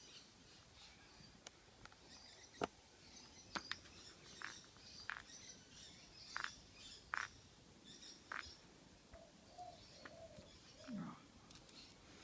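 Faint bird chirps in the background, with scattered small sharp clicks and taps of padlock parts being handled.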